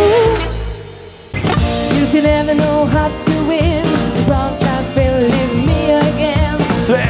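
Live band music: one song dies away just after the start, and about a second in another comes in with drum kit, bass, electric guitar, keyboard and women singing lead.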